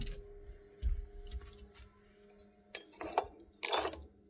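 Scattered light clicks and knocks with a short rustling scrape about three and a half seconds in, over a steady faint hum.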